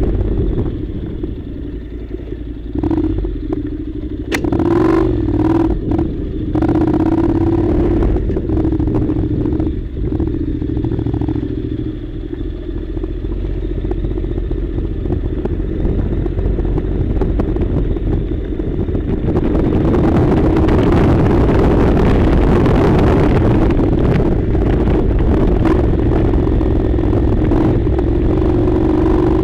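Honda NC700 motorcycle's parallel-twin engine running steadily under way, with a few clattering knocks about five seconds in. From about two-thirds of the way through, a louder rushing noise joins it.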